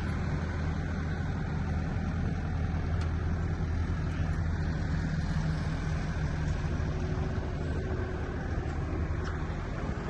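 Crane engine running steadily with a low, even hum.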